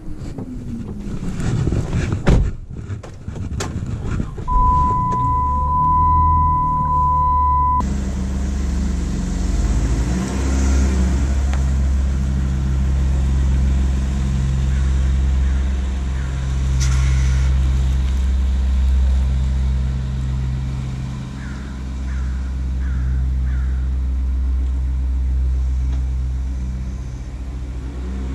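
Volkswagen Routan minivan: a few knocks and clicks from the doors, then the engine starts and runs with a steady low hum while the dashboard sounds a single steady warning beep for about three seconds. The engine keeps running as the van pulls away and drives off.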